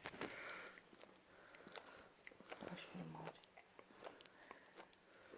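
A sleeping German Shepherd puppy snoring softly, faint breaths coming and going every second or two, with a few small clicks.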